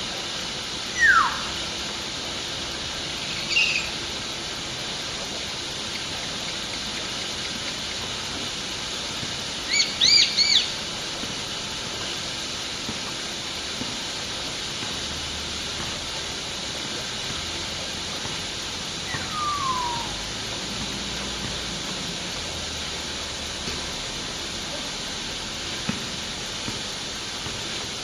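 Common hill myna (beo) giving a few scattered calls over a steady hiss: a falling whistle about a second in, a short call near four seconds, a quick run of three or four calls around ten seconds, and another falling whistle near twenty seconds.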